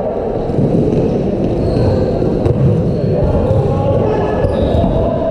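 Balls bouncing on a sports hall floor amid players' shouting and chatter.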